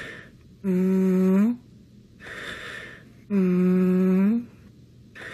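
A ZooZoo's voice humming in long, level notes, twice, each about a second long and lifting upward at its end, with a breathy intake of air between them.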